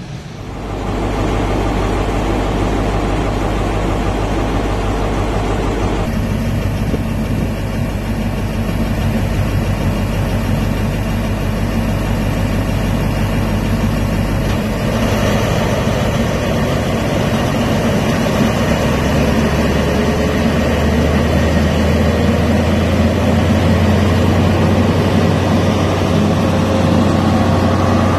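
Class 43 HST power car's MTU V16 diesel engine running steadily at a platform, with a deep hum. Its note changes about halfway through and again a few seconds later, growing a little louder.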